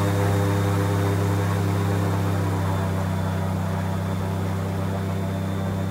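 Aluminum search boat's motor running steadily under way: a loud, even, low drone that holds the same pitch throughout.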